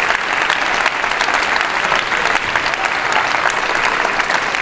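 Church audience applauding, many hands clapping at once at a steady, loud level.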